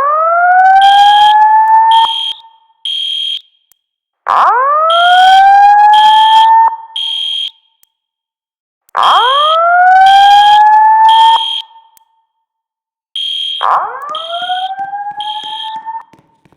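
Building fire alarm evacuation signal: a loud rising whoop tone, each sweep climbing in pitch over about two seconds and repeating four times. Short high-pitched beeps in groups of three sound between the sweeps.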